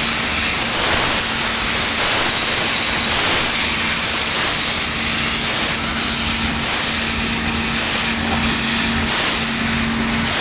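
Laser cutting machine working on steel plate: a steady, loud hiss of gas and cutting noise with a constant low hum underneath.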